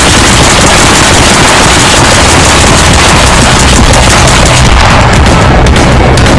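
Loud, continuous rapid fire, many shots running together without a pause.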